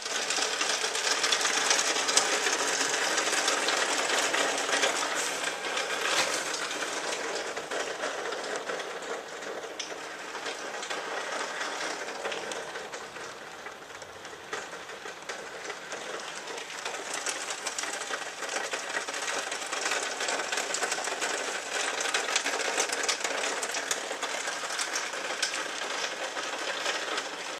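Heavy thunderstorm rain pattering hard on a hard surface, a dense crackle of many small impacts. It eases somewhat about halfway through and then picks up again.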